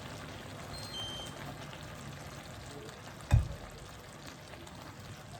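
Faint steady sizzle of food cooking in a pan, with a single loud dull thump a little past the middle and a few light clinks near the start.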